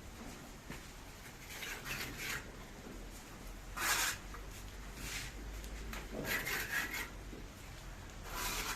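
Irregular scraping and rubbing strokes from hand work at a construction job, about one every one to two seconds, the sharpest about four seconds in.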